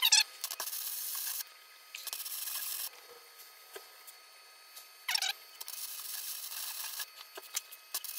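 Electric arc welding a nut onto a seized steel wheel-bearing hub: the arc hisses and crackles in about four stop-start runs, the last still going at the end, with a short metallic rattle about five seconds in.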